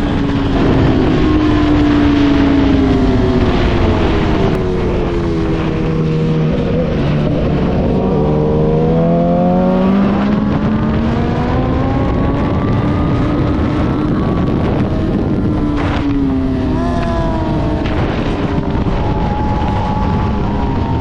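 Yamaha YZF-R6 sport bike's inline-four engine, fitted with an Akrapovič exhaust, lapping at track speed. Its pitch falls over the first several seconds as the bike slows, then climbs at high revs, drops sharply about three-quarters of the way through, and climbs again.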